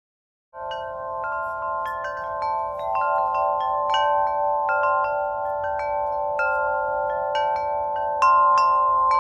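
Wind chimes tinkling: irregular struck notes ringing over a steady, held cluster of tones, starting about half a second in.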